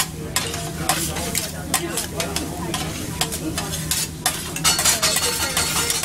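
Metal spatulas scraping and clacking on a hot steel teppanyaki griddle as rice fries over a steady sizzle; the clacks come faster and louder in the last second or so.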